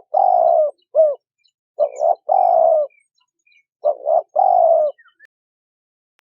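Spotted doves cooing: three phrases about two seconds apart, each a couple of short notes and then a longer, slightly falling coo, the calling stopping about five seconds in. Faint chirps of small birds sound behind.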